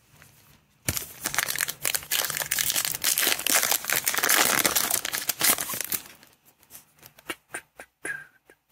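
Plastic-foil trading-card pack wrapper crinkling and tearing as it is ripped open by hand, starting about a second in and lasting about five seconds. After that come scattered light clicks and rustles as the cards inside are handled.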